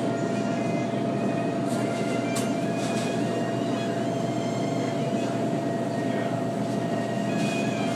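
Steady machine hum and rushing noise with one constant whining tone, from the circulating machinery of a live-lobster holding tank.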